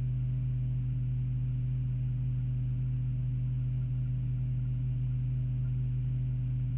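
Steady low drone of a first-generation Chevrolet Colorado's engine idling, heard from inside the cab.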